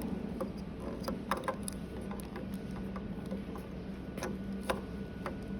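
Scattered light clicks and taps as an I1600 printhead is moved to the right and seated on a UV printer's carriage, over a steady low hum.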